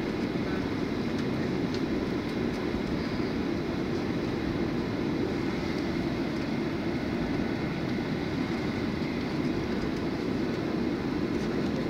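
Steady cabin noise of an airliner taxiing: an even engine hum and low rumble heard from inside the cabin, with a few faint tones above it.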